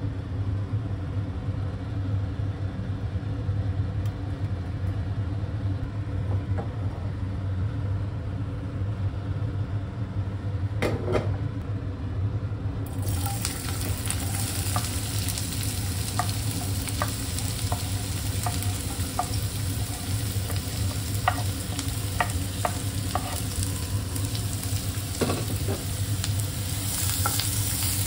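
Steady low hum while oil heats in a nonstick frying pan. About halfway through, chopped onion, capsicum and carrot go into the hot oil and start sizzling loudly. A flat blade then stirs them, tapping and scraping against the pan.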